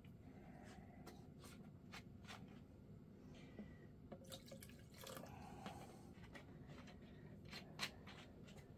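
Faint, scattered drips and small ticks of electrolyte being dripped from a syringe into the cells of a dry-charged motorcycle battery during its first fill.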